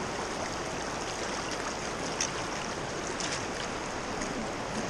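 Steady rush of the Neversink River's flowing water.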